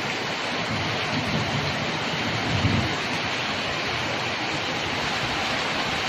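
Heavy thunderstorm rain pouring steadily, with two low rumbles swelling in it, about a second in and again near the middle.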